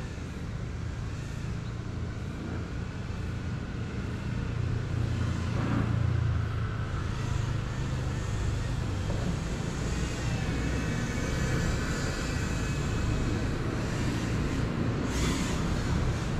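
Steady low rumble of road traffic, growing a little louder partway through, with a faint wavering whine in the middle and a brief rush of noise near the end.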